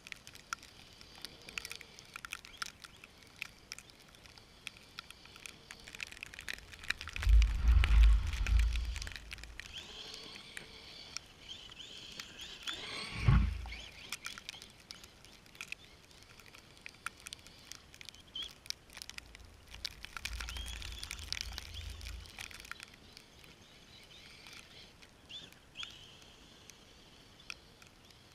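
Traxxas Summit electric RC truck driving through snow: a faint, wavering whine from its motor and drivetrain comes and goes among scattered clicks. There are heavy low thumps or rumbles three times, near a third of the way in, about halfway, and again later.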